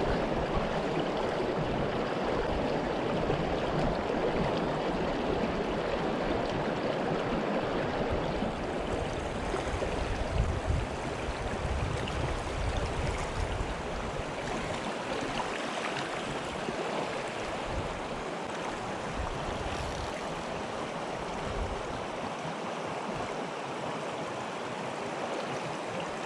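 Shallow, stony mountain stream running steadily over rocks, with occasional low rumbles underneath.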